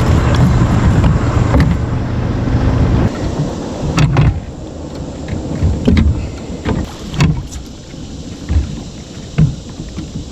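A low steady rumble that stops about three seconds in, then a series of separate knocks and bumps on a kayak.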